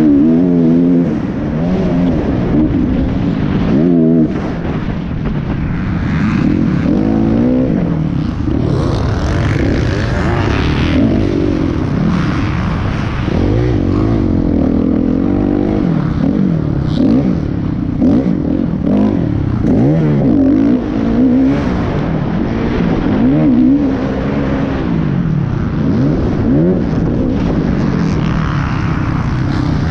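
Motocross dirt bike engine revving hard and backing off over and over as the bike is ridden around a dirt track, its pitch rising and falling every second or two, heard from the rider's helmet camera.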